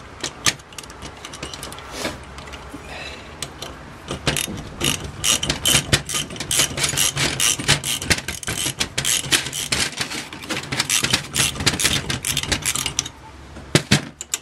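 Socket ratchet clicking rapidly as a 9 mm socket backs the power jet out of an Aisan two-barrel carburetor. The clicking starts about four seconds in after a few scattered clicks and stops shortly before the end.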